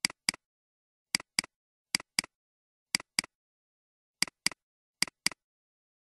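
Computer mouse button double-clicking: six double-clicks, about one a second, each a pair of short sharp clicks a quarter second apart.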